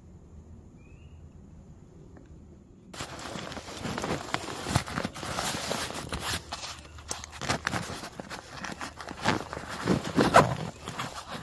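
Quiet woods for the first three seconds or so. Then comes loud, irregular rustling and clicking as a nylon backpack is handled on dry leaf litter, its straps and buckles worked to open it.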